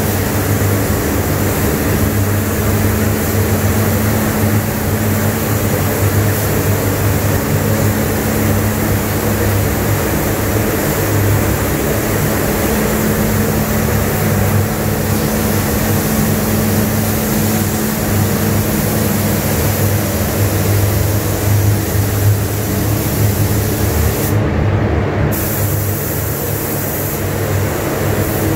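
Paint spray booth ventilation fans running: a steady, loud air rush over a constant low hum.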